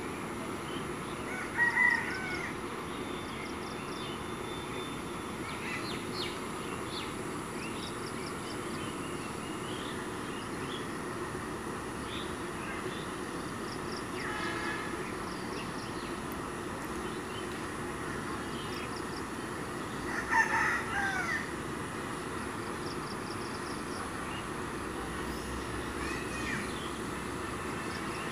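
Rooster crowing twice, first about two seconds in and again about twenty seconds in, over faint small-bird chirps and a steady low background hum.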